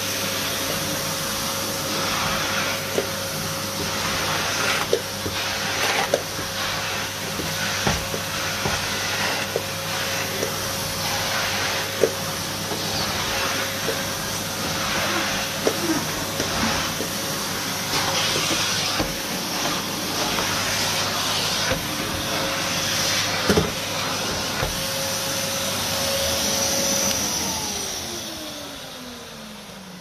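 Numatic Henry HVR200 tub vacuum cleaner running, a steady motor whine and airflow rush as the floor nozzle is worked over carpet, with occasional clicks and knocks. Near the end the motor is switched off and its whine falls in pitch as it winds down.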